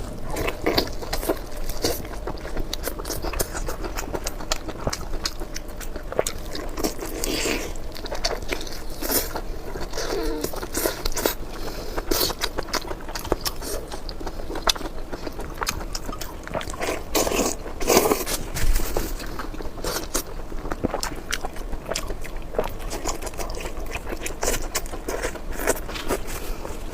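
Close-miked eating: steady chewing and biting with many short wet clicks from the mouth, and a few louder crunchy bites, one of the loudest about 18 seconds in.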